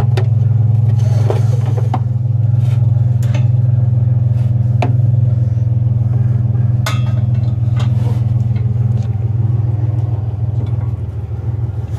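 Pickup truck engine idling with a steady low hum, while scrap metal in the truck bed clanks and knocks a few times as the load is shifted.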